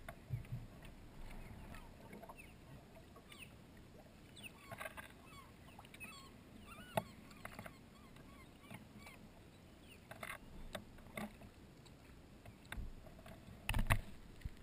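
Kayak paddle dipping into calm water, with a few separate splashy strokes that come more often near the end. Faint distant bird calls sound in the middle.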